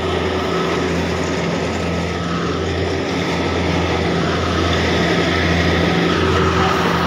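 An engine running steadily at a constant speed, a low even hum with a faint higher whine.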